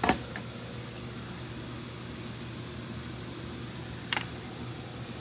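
Two brief, sharp knocks of tools or metal against the clamped galvanized sheet metal on the workbench, the first right at the start and the second about four seconds later, over a steady low hum.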